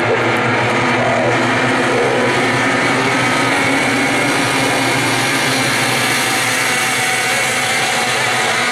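A pack of 500cc modified racing hydroplanes' two-stroke outboard motors running flat out together: a steady, dense buzz of several engines at once.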